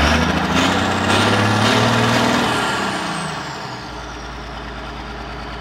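Zetor 16145 tractor's diesel engine, running through a straight pipe in place of its muffler, revved hard from idle. It holds high revs for a couple of seconds, then winds down with a high whistle falling away, and settles back to a steady idle about four seconds in.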